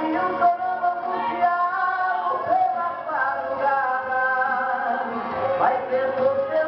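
A man singing a worship song into a handheld microphone, amplified through a PA, with held and sliding notes over instrumental backing.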